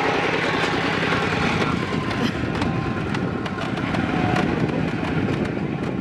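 Engine of a small farm cart hauling a load of rice sacks, running steadily with a rapid low chugging as the cart drives off.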